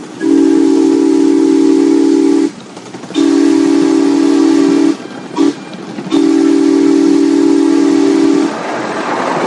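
Ride-on miniature railway locomotive's multi-tone chime whistle sounding four blasts: long, long, short, long, the pattern of a road-crossing signal. Near the end the whistle stops and the train's running noise rises.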